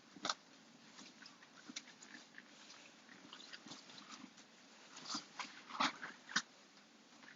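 Faint scattered clicks and small rustling ticks over a low hum, with a few sharper clicks near the start and three more close together toward the end.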